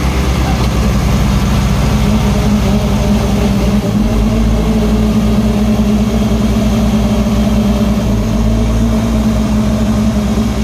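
Diesel tractor engines of a Sonalika Tiger 55 4WD and a Massey Ferguson 9500 running hard under heavy load as they pull against each other in a tug-of-war. The result is a loud, steady low drone, which deepens and grows stronger about four seconds in.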